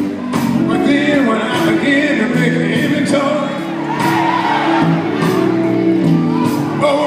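Live gospel quartet music: men's voices singing with a band, and drums keeping a steady beat of about two hits a second.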